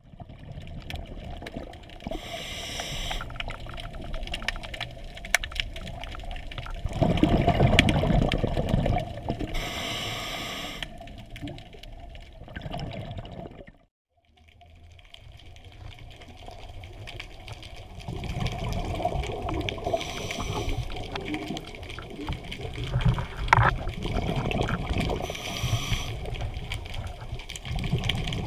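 Scuba regulator breathing heard underwater: hissing inhalations alternating with bubbling exhalations, repeating every several seconds. The sound drops out briefly about halfway through.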